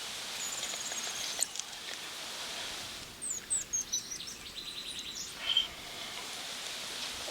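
Birds chirping outdoors: a few short falling chirps near the start, then a quick run of falling chirps and a rapid trill midway, over a steady high background hiss.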